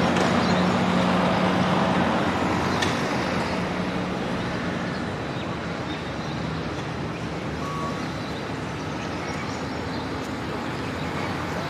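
Road traffic going by on a city street, one vehicle's low engine hum loudest for the first few seconds and then fading into a steady traffic wash.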